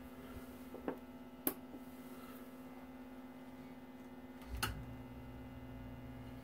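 Low electrical mains hum from the Admiral record changer's motor being energised at low voltage through a variac, with a few light clicks. About four and a half seconds in, just after a click, the hum shifts to a lower, fuller pitch.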